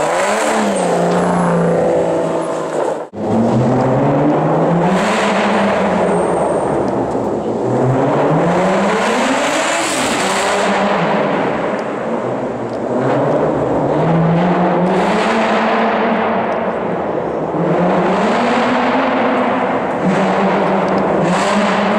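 Aston Martin DBS V12 with a Quicksilver exhaust, revving and accelerating over and over, the engine note climbing and falling back every few seconds and echoing in an underground parking garage. The sound breaks off briefly about three seconds in.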